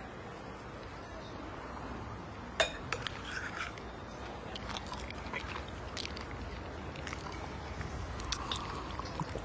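A sharp clink of cutlery on tableware about two and a half seconds in, then scattered light clinks and scrapes of a fork in a bowl and of a glass, over a steady low background hum.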